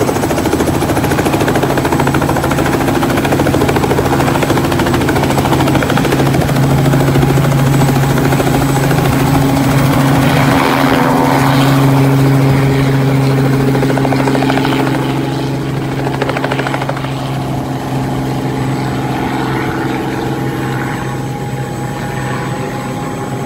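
Small helicopter's engine and rotor running steadily on the pad, then lifting off about halfway through. The sound is loudest around the lift-off and fades gradually as the helicopter flies away.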